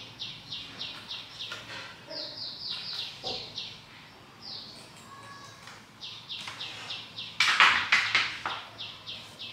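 A small bird chirping in quick runs of short, high, falling notes, about five a second, broken by pauses. About three-quarters of the way in comes a louder burst of rough noise lasting about a second.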